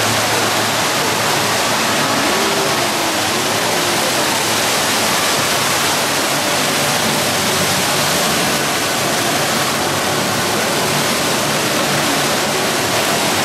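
Indoor fountain's water jets splashing down into its basin: a steady rush of falling water.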